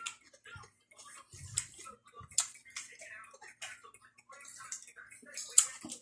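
Close-miked chewing of raw leafy vegetables: irregular wet, crunchy mouth sounds, with one sharper crunch near the end.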